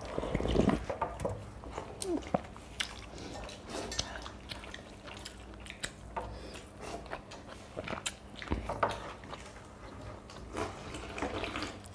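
Hands squishing and scooping watery soaked rice (panta bhat) from steel plates, with chewing and scattered small clicks and wet smacks of fingers against the metal.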